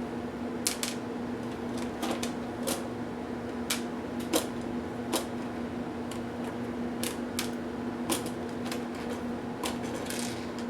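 Irregular light clicks and taps, about a dozen, from a Toshiba P755 laptop's plastic case parts and small tools being handled during disassembly, over a steady low hum.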